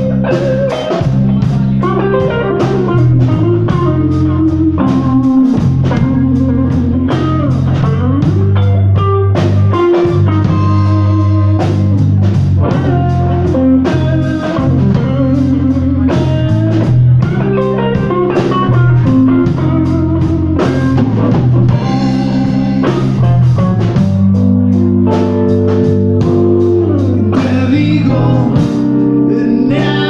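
Live blues band playing: electric guitar lead over bass guitar and drum kit.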